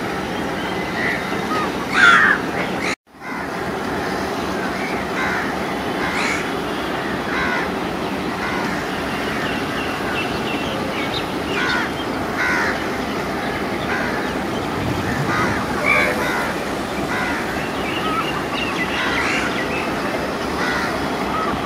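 Crows cawing again and again over a steady background noise, with the sound dropping out for a moment about three seconds in.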